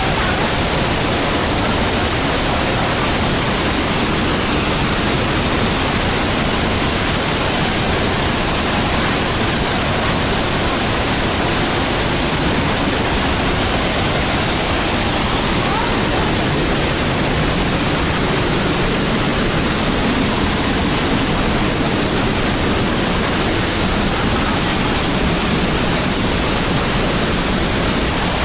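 Large waterfall crashing down, a steady loud rush of falling water.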